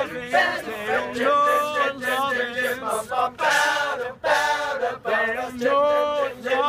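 All-male a cappella group singing in harmony: a held low backing note runs underneath short, rhythmic sung syllables from the upper voices.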